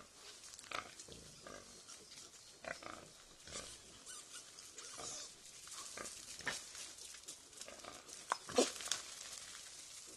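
Wild boar and their piglets calling while the piglets jostle to nurse from a lying sow: short, scattered calls, the loudest a pair about eight and a half seconds in, over a steady hiss.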